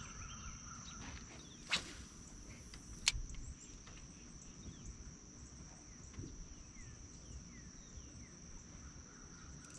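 Insects droning in one steady, high-pitched tone, with two sharp clicks about a second and a half apart near the start.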